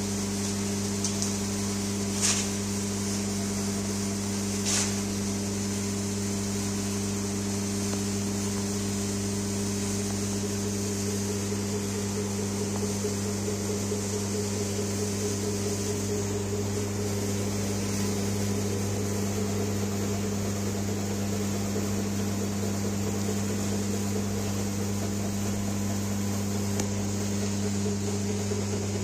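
Electric hydraulic pump of a digital compression testing machine running with a steady low hum as it loads a specimen. A few short clicks come in the first five seconds.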